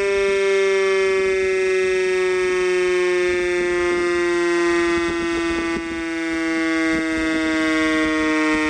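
Air raid siren sounding a long, steady tone that slowly sinks in pitch, with a weaker, lower tone running beneath it. The loudness dips briefly about six seconds in.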